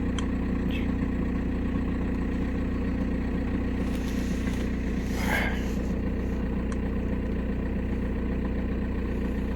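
Volkswagen Passat B6's 1.9 TDI diesel engine idling steadily, with a brief rustling hiss about four to five seconds in.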